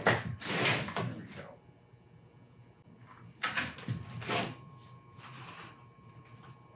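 Foamcore cutoff strips being handled and slid against each other and the saw table, making brief scraping rustles: a cluster in the first second and a half, then two more a few seconds in.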